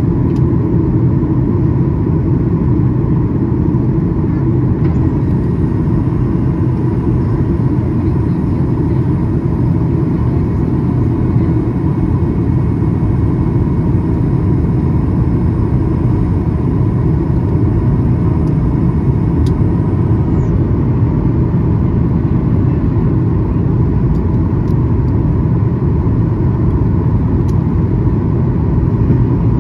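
Cabin noise inside a Boeing 737-800 in flight: a steady low rumble of its CFM56-7B engines and the airflow over the fuselage. A faint high whine comes in about five seconds in and stops about two-thirds of the way through.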